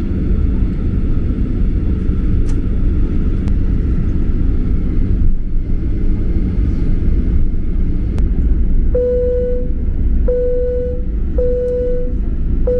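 Jet airliner's engines running, heard inside the cabin as a steady low rumble with a faint whine. From about nine seconds in, four short low tones sound about a second apart.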